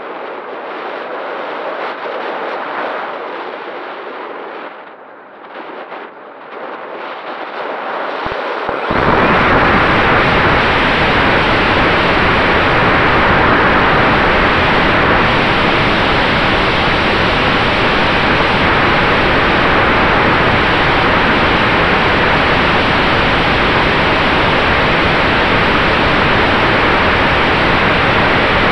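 Wind rushing over the onboard camera of an Easy Glider Pro RC glider in flight, rising and falling and dipping for a moment about five seconds in. About nine seconds in the electric motor starts and the spinning propeller's wash turns it abruptly into a loud, steady rush that holds to the end.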